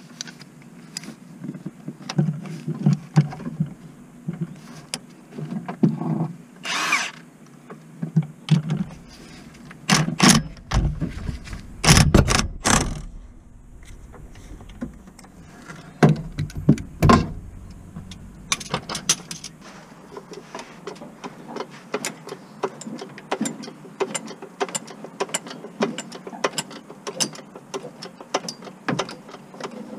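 Hand socket ratchet clicking on a bolt on the van's gearbox, with clanks of the metal socket and extension bar against the fittings. There are louder knocks about ten to seventeen seconds in, then a long run of quick ratchet clicks.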